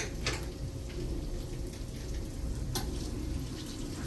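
Food frying in a pan, a steady sizzle with two sharp clicks, one near the start and one about two-thirds of the way through.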